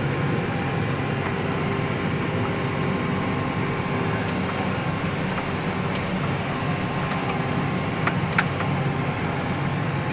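Tractor engine running steadily while towing a wide pin wheel rake, heard from inside the cab, with a few sharp clicks and knocks about six to eight and a half seconds in.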